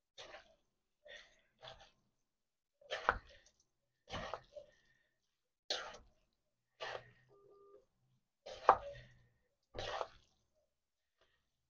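Wooden spoon stirring and tossing spaghetti in a metal pan, in about nine short scraping strokes roughly a second apart.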